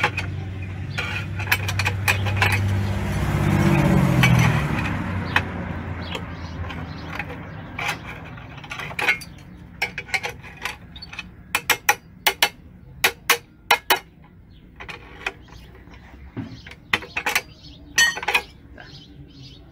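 Sharp metallic clinks and taps of a hammer and steel lever on steel wire rod as the ends of a rebar stirrup are bent over on a homemade angle-iron bender; the taps come in quick clusters in the second half. A low rumble fades out over the first five seconds.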